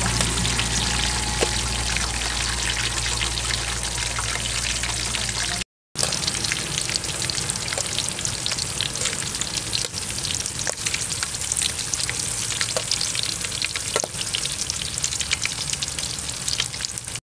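Tarantulas and chopped garlic deep-frying in hot oil in an aluminium wok, a dense crackling sizzle. The sound breaks off for a moment about six seconds in, and a low steady hum under the sizzle stops there too.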